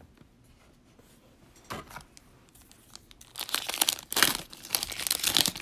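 Cellophane wrapper of a trading-card cello pack crinkling and tearing as it is opened and handled: nearly quiet at first, a brief crinkle about two seconds in, then continuous crinkling from about three and a half seconds in.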